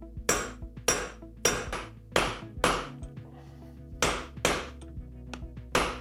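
Steel hammer striking a socket set against the rear-wheel bearing in a motorcycle sprocket carrier, sharp ringing metal blows in uneven runs with a short pause about halfway, tapping the bearing out of its bore.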